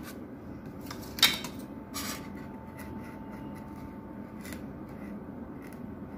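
Light handling noises from working dough on a polystyrene sheet with fingers and a small metal blade: a few sharp clicks and taps, the sharpest just over a second in, over a faint steady hiss.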